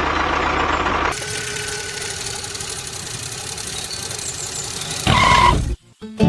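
Engine running steadily, its sound changing abruptly about a second in and again near the end before cutting out.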